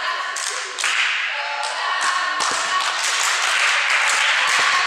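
Hand clapping and girls' voices calling out and chanting in an echoing sports hall between volleyball rallies, with scattered thuds and taps.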